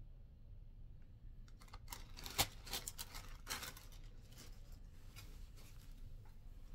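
A clear plastic parts bag crinkling and crackling as it is handled, for about two seconds, with one sharp click about two and a half seconds in; fainter light ticks follow as small parts and the seat mast are moved on the bench.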